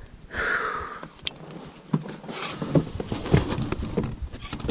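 A heavy breath out, followed by scattered clicks and rustling as fishing tackle is handled against an inflatable PVC boat.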